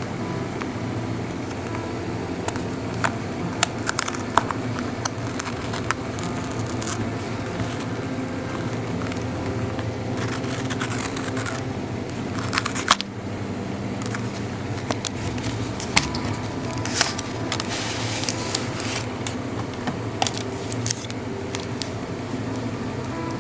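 Packaging being handled and opened by hand: scattered clicks, crackles and scrapes, with a longer scraping noise about ten seconds in and another near thirteen seconds, over a steady low hum.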